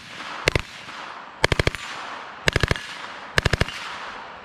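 Short full-auto bursts from an HK MP5 submachine gun in 9mm Parabellum: a couple of shots, then three bursts of about three to five rapid shots each, roughly a second apart, each trailing off in an echo.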